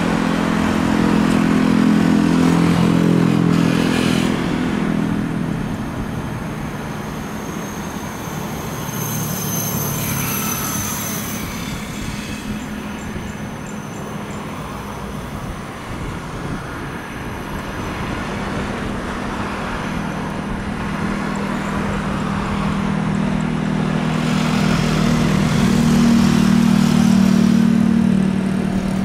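Aircraft tow tractor's engine running as it tows an airliner along the taxiway, a steady low hum that is louder near the start and again near the end. A brief high whine comes in about ten seconds in.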